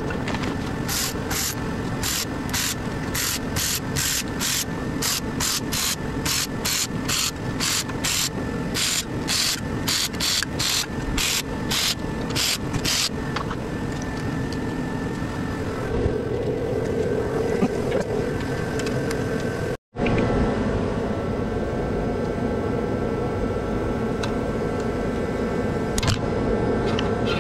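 Cordless electric ratchet run in short bursts, about two a second, spinning off the nuts on the bus bars of a Toyota Prius hybrid battery pack. The bursts stop about halfway through, leaving a steady shop background noise that cuts out for a moment later on.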